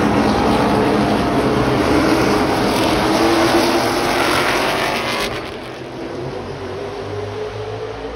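Pack of NASCAR Cup stock cars with V8 engines going past on the track, loud. The noise drops away about five seconds in, and an engine note rises slowly near the end.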